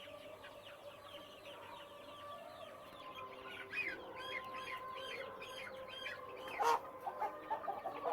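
A flock of young desi chickens peeping and clucking, many short falling peeps overlapping, with one louder squawk about six and a half seconds in.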